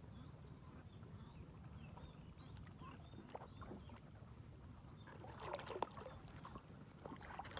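Quiet ambience in a small fishing boat on open water, with a low steady background and faint high chirps. About five and a half seconds in there is a short cluster of knocks and clicks.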